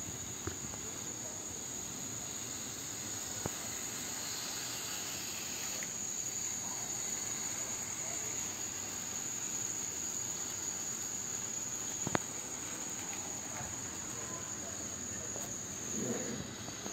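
Model electric locomotive and tank wagons running on the layout's track: a steady rolling hiss with a constant high-pitched whine, and one sharp click about twelve seconds in.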